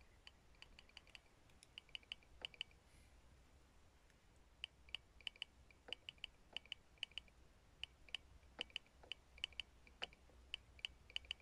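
Faint clicking of a hand-worked Morse key sending CW: quick irregular runs of light clicks, grouped like Morse characters.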